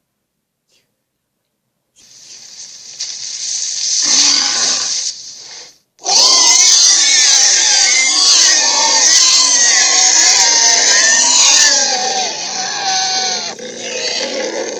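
Sound-designed sea-monster calls. After a short silence a rising growl builds, then after a brief break a long, loud, wavering roar comes in, its pitch bending up and down, followed by a shorter call near the end.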